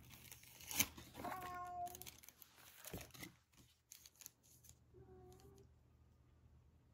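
Faint crinkling and rustling of paper packaging, with short scratchy clicks. A cat meows about a second in and again more faintly about five seconds in.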